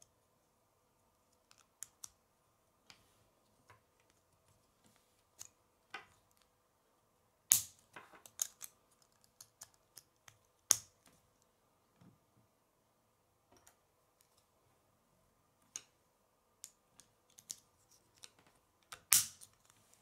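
K'nex plastic pieces clicking and snapping as white connectors are pushed onto and slid along grey rods by hand: scattered light clicks, with three louder snaps, the last near the end.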